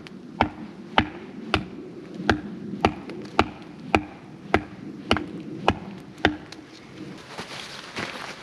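Wooden stake being chopped to a point with a blade: about a dozen sharp, evenly spaced chopping strokes, roughly two a second, stopping about six seconds in, then soft rustling.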